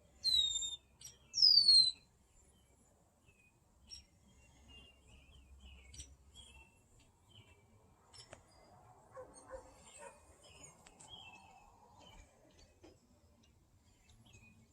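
Wild birds calling: two loud, sharply falling whistled calls in the first two seconds, followed by faint scattered chirps.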